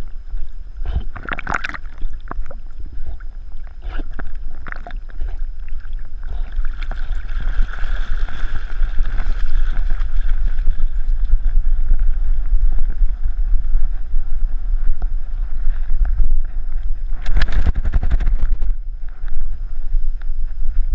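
Water splashing and sloshing around a swimming dog's body, heard through a camera housing on its back, over a steady muffled rumble of wind and movement on the housing. There is a brief burst of noise near the end.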